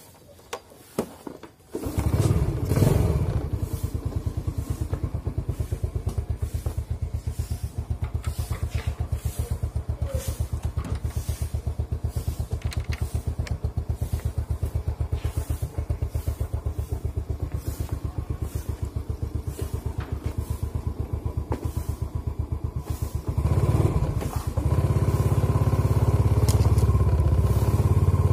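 Small step-through motorcycle engine starting about two seconds in, then idling with an even, fast pulse. Near the end it is revved and runs louder.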